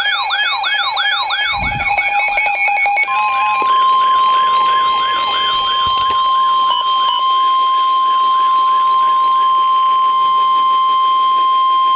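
Weather alert radios sounding their warning alarms together: a repeating rising-and-falling electronic warble about twice a second, with steady beeping tones that stop about three seconds in. At that point the steady 1050 Hz NOAA Weather Radio warning tone comes in and holds, signalling that a warning is being broadcast.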